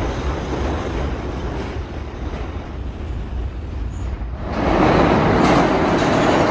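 New York City subway trains passing through the station. One train's running rumble fades away, then about four and a half seconds in a second train comes by alongside, starting suddenly and much louder with steady wheel-on-rail noise.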